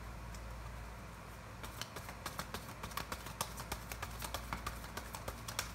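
Tarot cards being handled and drawn from the deck: a quick, irregular run of light clicks and snaps that starts about a second and a half in.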